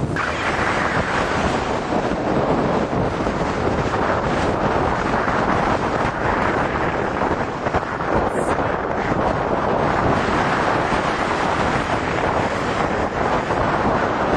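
Strong wind buffeting the microphone in a sand storm: a steady rushing noise.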